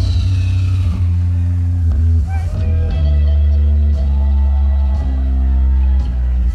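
Loud live electronic dance music over a festival sound system: a heavy sustained bass with guitar-like lead lines above it.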